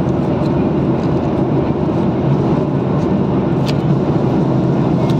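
Steady low drone of a passenger jet's cabin, engine and air noise heard from inside the cabin, with a faint click or two.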